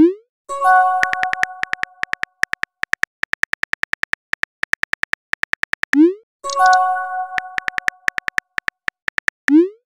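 Phone-keyboard tap clicks in quick runs as a message is typed. Twice, a short rising whoosh as a text is sent is followed by a chiming message tone that dies away, and a third whoosh comes near the end.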